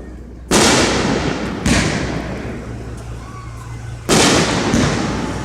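Fireworks going off: three loud bangs, about half a second in, just under two seconds in, and about four seconds in, each trailing off slowly.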